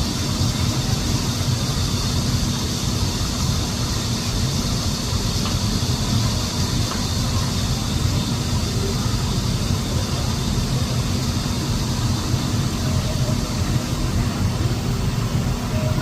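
Mountain valley stream rushing over rocks: a steady, unbroken wash of water noise with a strong low rumble.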